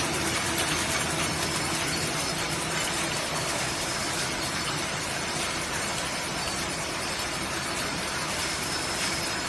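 Automatic plastic cutlery packing machines running: a steady, dense mechanical clatter.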